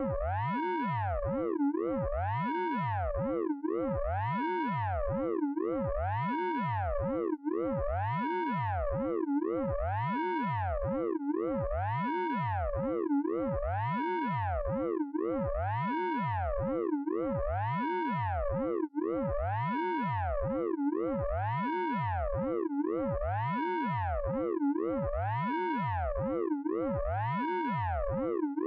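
Synthesized radar pulse-train sound effect from the Orange Vocoder plugin: a buzzy electronic tone that sweeps up and back down in pitch, repeating evenly about every two seconds without a break.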